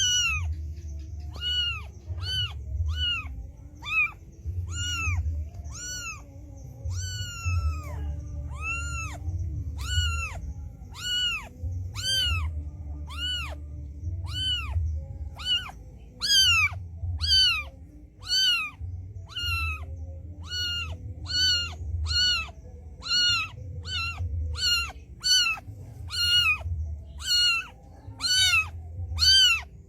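Cat mewing over and over, short high-pitched meows that rise and fall, about one to two a second and coming faster in the second half, with a low rumble underneath.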